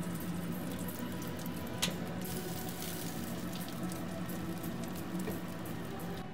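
Fresh-roasted char siu pork belly crackling and sizzling as it comes out of a countertop oven, over the oven's steady hum, with one sharp knock about two seconds in.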